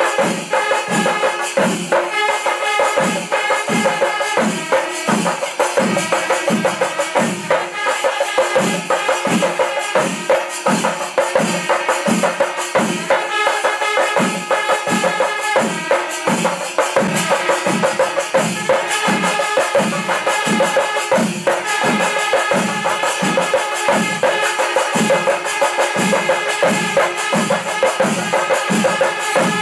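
Panchari melam: chenda drums beating a steady rhythm of about two strokes a second, with ilathalam cymbals jingling and wind instruments holding tones above.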